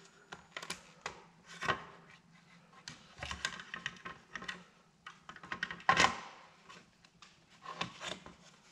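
Small plastic clicks and knocks as the white plastic housing parts of a Philips DreamStation CPAP are handled and fitted back together, with the loudest knock about six seconds in.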